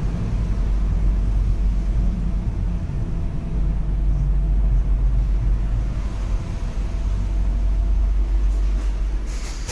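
Berlin S-Bahn class 485 electric train heard from inside the car, a steady low rumble of running gear and motors as it runs alongside a station platform. A brief high hiss starts near the end.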